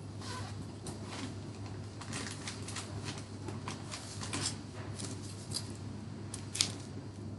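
Irregular light clicks and rustles, with one sharper click near the end, over a steady low electrical hum.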